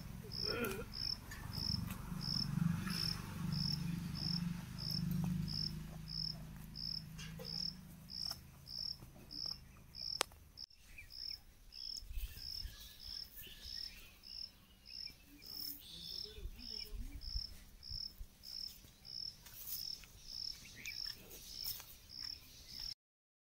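An insect chirping in a steady, even rhythm, a little under two high chirps a second. A low rumble runs beneath it during the first half and dies away about halfway through.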